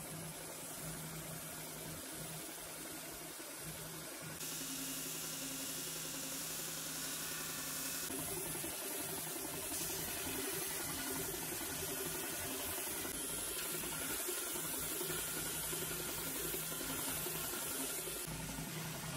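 Oscillating edge belt sander running, its abrasive belt hissing steadily against the edge of a wooden cutting board over a constant motor hum. The sound changes abruptly a few times.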